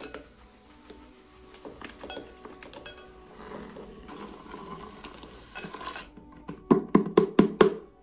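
White granulated sugar, with a few sugar cubes, pouring from a plastic container into a glass measuring jug: a steady grainy hiss. Near the end comes a quick run of about six loud knocks as the container is shaken out over the jug. Soft background music runs underneath.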